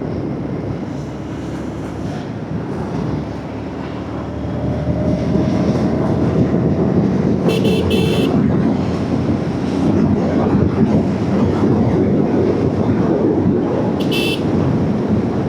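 Motorcycle engine and wind noise on a helmet-mounted camera while riding, the engine picking up speed about four seconds in. A horn gives short rapid beeps twice, about seven seconds in and again near the end.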